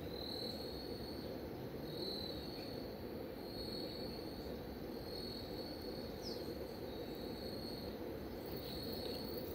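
Insects chirping: a high, steady-pitched trill in short bursts, repeating every second or so, over a steady low background hiss.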